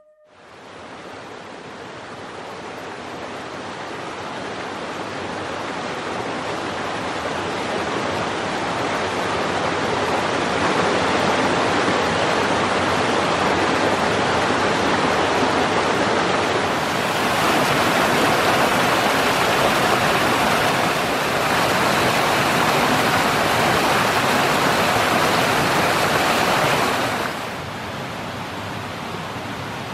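Rushing mountain stream flowing over rocks, a steady loud rush that fades in over the first several seconds. Near the end it drops to a quieter, steady rush.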